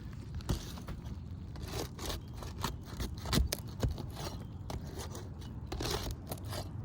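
Hand tool scraping, knocking and prying against asphalt roof shingles as the shingles are worked loose and nails are pulled, in irregular scrapes and clicks.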